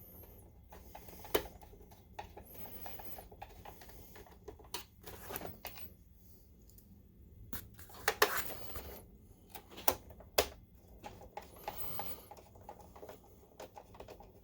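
Hand screwdriver turning short screws into a projector's plastic case, with scattered clicks, scrapes and knocks of the plastic housing being handled; the loudest scrapes come about 8 and 10 seconds in.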